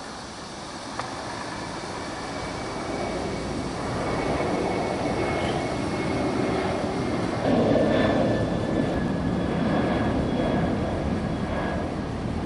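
Airbus A330 twin-engine jetliner climbing out after takeoff, its engines at takeoff power. A broad jet rumble grows louder over the first seconds and peaks past the middle, with thin steady whining tones on top.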